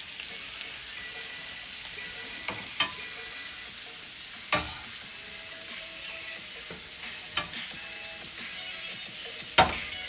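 Shrimp sizzling steadily in a hot frying pan. A utensil clinks or knocks against the pan four times, loudest near the end.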